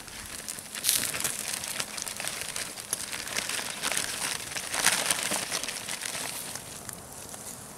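Campfire crackling and sizzling as pork chops cook on a wire grill over the wood fire: a dense run of small pops over a hiss, with two louder surges.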